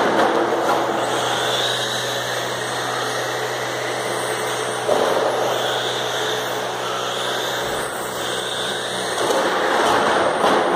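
Radio-controlled race cars running on an indoor carpet track, a steady noisy hum from their motors and tyres that swells as cars pass close: at the start, about five seconds in and again near the end.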